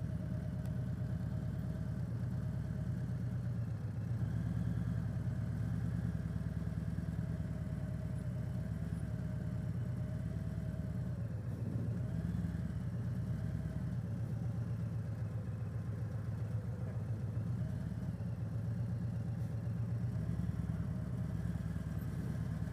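Harley-Davidson Road Glide Limited's V-twin engine running steadily at low revs while the bike creeps along at walking pace.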